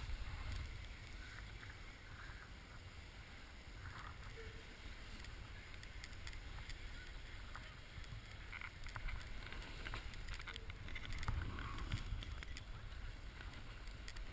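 Snowboard sliding over packed snow, a low rumbling scrape with wind on the microphone, a little louder about eleven seconds in.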